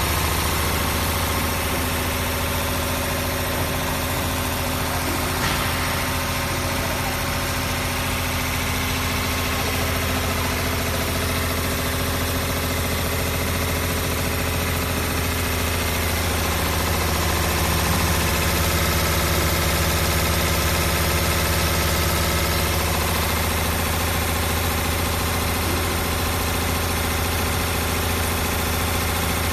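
Six-spindle CNC needle winding machine running, winding wire onto brushless motor stators: a steady mechanical hum with a strong low tone, unchanging throughout.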